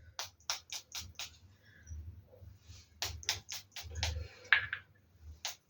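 A string of short, sharp clicks and taps in small clusters, with soft low thumps of handling underneath.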